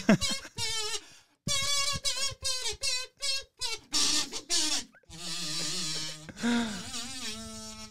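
A gold-coloured kazoo played as a buzzy little tune: a quick run of short notes, then a few longer, lower held notes toward the end.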